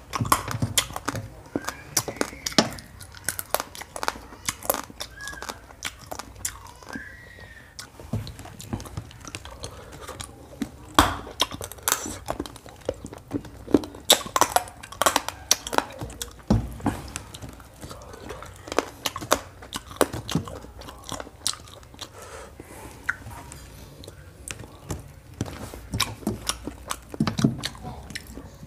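Close-miked chewing and biting of chicken curry and rice eaten by hand, a quick irregular run of small crunches and clicks with a few louder crunches along the way.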